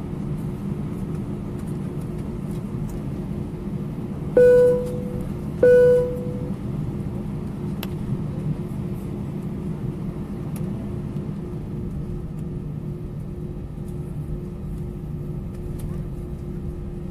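Steady hum of an Airbus A320's engines at taxi power, heard inside the passenger cabin as the airliner rolls along the taxiway. About four seconds in, two identical cabin chimes ring out a little over a second apart, each fading quickly; these are the loudest sounds.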